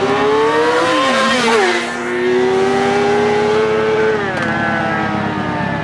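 Sport motorcycle engine accelerating hard through the gears, its pitch climbing and dropping sharply at gear changes about a second and a half in and again near four seconds in.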